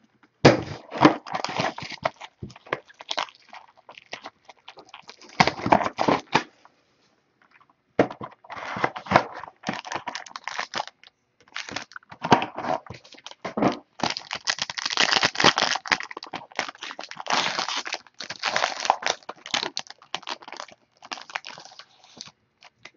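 A cardboard trading-card box being handled and a foil card-pack wrapper crinkling and tearing open, in irregular crackly spells with short pauses.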